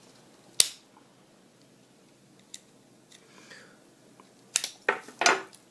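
Sharp clicks and snips of rubber bands being worked off a toy car's plastic packaging insert: a single click about half a second in, a few faint ones in the middle and a quick cluster near the end.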